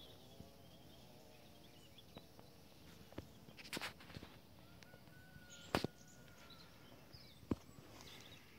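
Quiet outdoor background with a few short, sharp clicks and taps, and a faint high whistle-like call about five seconds in.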